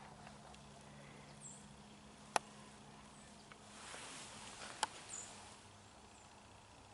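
Quiet outdoor ambience: a low steady hum that stops about halfway through, a few short, high, falling chirps, and two sharp clicks about two and a half seconds apart.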